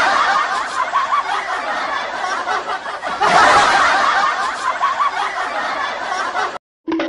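A group of people laughing and chuckling together, swelling twice. It cuts off suddenly near the end.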